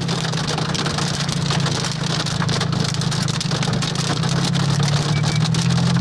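Hailstones pelting a moving car, heard from inside the cabin: a dense, constant run of small hits on the roof and windshield over the car's steady engine and road drone.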